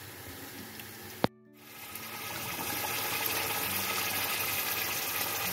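Yogurt-marinated chicken sizzling in hot vanaspati ghee in a steel pot. A sharp click comes about a second in, then a brief drop-out, after which the sizzling rises and holds steady.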